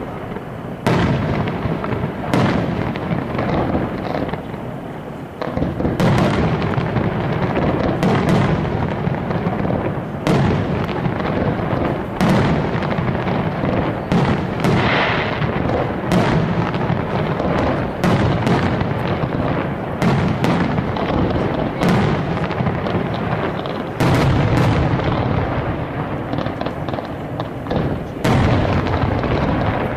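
Fireworks display: aerial shells bursting in quick succession, sharp bangs every one to two seconds over continuous crackling.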